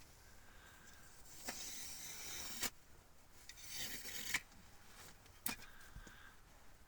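Two long scraping strokes, like a rasp or something hard dragged across a rough surface, each ending in a sharp knock, then a single click.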